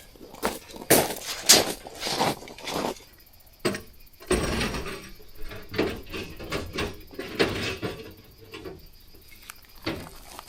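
Irregular knocks, clicks and clatter, with a longer scraping rustle about four seconds in.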